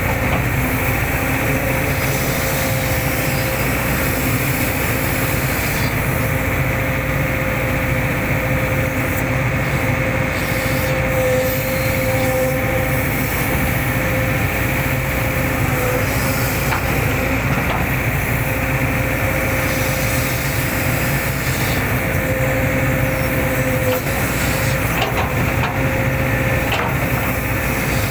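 Hitachi hydraulic excavator's diesel engine running steadily under work, with a held mid-pitched tone that wavers slightly and a few faint knocks near the end.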